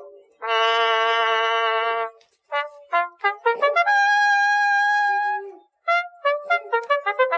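Trumpet playing a tune: a long held note, a quick run of short notes, a higher held note, then another fast run.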